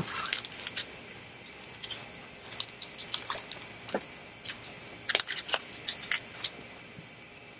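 A thump, then a quick, irregular run of small clicks and taps as small parts of a 3D printer's print head are handled and fitted by hand. The clicking stops about a second before the end.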